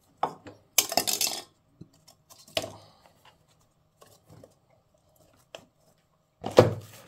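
Steel parts of a cut-open oil filter clinking and clattering against each other and the wooden bench as they are handled and the cut lid is fitted back onto the can. There is a rattling cluster about a second in and a louder knock near the end.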